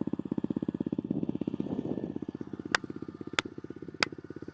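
Pit bike's single-cylinder engine idling with an even putter, about twelve beats a second. Three sharp clicks about two-thirds of a second apart come in the second half.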